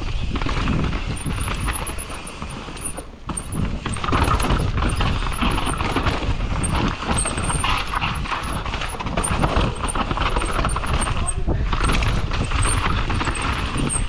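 Mountain bike running fast down a rough dirt trail: continuous rattling and knocking of the bike over roots and rocks with tyres on dirt, and wind rumbling on the rider-mounted microphone. It eases briefly a few seconds in, then picks up again.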